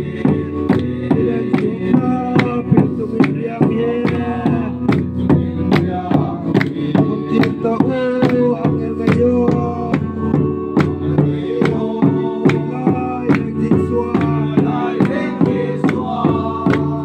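A group of men singing a Christmas song, with two barrel drums beaten with sticks and hand clapping keeping a steady beat.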